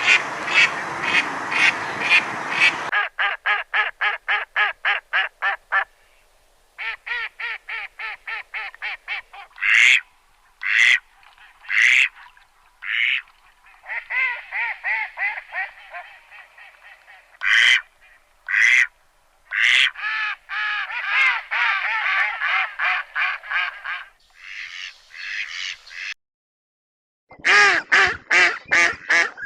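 Ducks quacking: rapid runs of short quacks, about four a second, broken by a few single loud quacks. It is a string of separate recordings that cut in and out abruptly.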